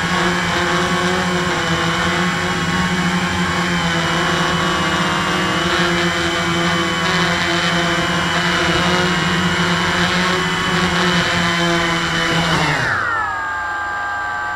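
Small quadcopter's motors and propellers, heard up close from the camera mounted on it, whining steadily at flight throttle. About 13 seconds in, the pitch falls as the motors slow and settles into a quieter, lower whine.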